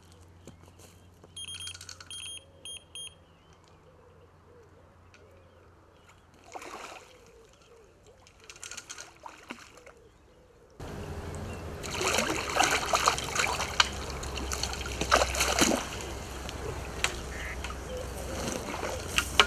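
A hooked carp splashing and churning the surface of the water close in as it is played to the bank, sporadic at first and much louder and more continuous in the second half. A short run of electronic beeps sounds near the start.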